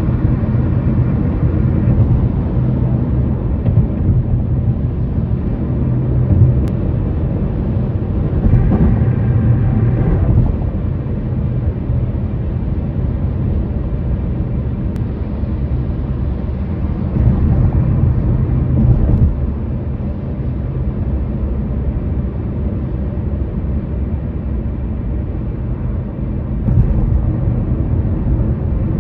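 Road noise of a vehicle driving across a bridge: a steady low rumble of tyres and engine that swells louder three times, about a third of the way in, near the middle and near the end.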